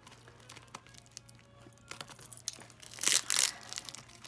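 A bag stuffed with jewelry crinkling and rustling as it is handled, with scattered small clicks and a louder burst of crinkling about three seconds in. Faint background music underneath.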